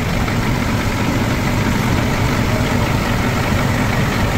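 Truck engine idling steadily, a low even rumble.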